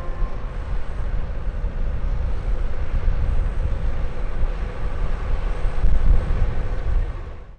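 Steady low rumble with a faint hum, swelling briefly near the end and then fading out.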